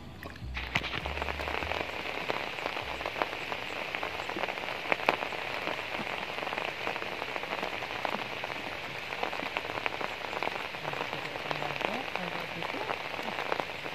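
Steady rain falling, a dense haze of small drop hits, starting about a second in.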